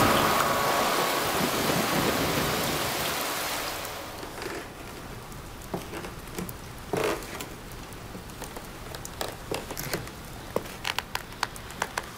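Heavy rain falling as a dense, steady hiss that dies away about four seconds in, leaving only scattered light taps.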